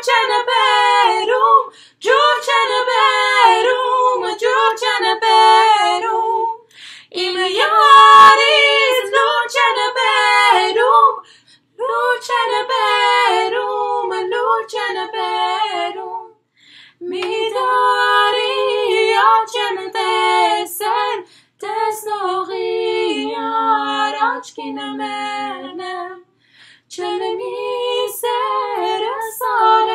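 Two women singing an Armenian song a cappella, in phrases of a few seconds with short breaths between, the voices splitting into two parts for a few seconds near the end.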